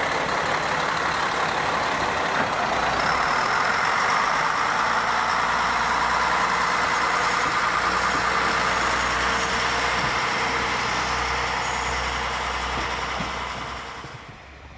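JR Kyushu KiHa 47 diesel railcar with its diesel engine running as the car moves along the track. The sound is steady and loud, then drops away quickly near the end.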